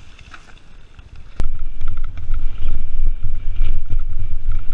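Riding noise from an action camera on a cyclocross bike: faint at first, then after a cut about a second and a half in, a loud, uneven low rumble of wind buffeting and bumps as the bike runs over a rough dirt track.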